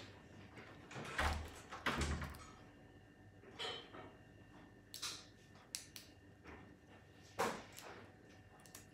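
Cooked crab shell being cracked and pulled apart by hand: scattered sharp snaps and crackles, with two dull thuds about a second and two seconds in.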